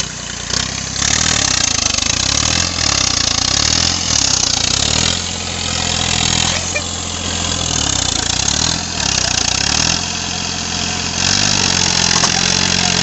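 Diesel tractor engine labouring under a heavy pulling load, its revs surging and dropping every two to three seconds.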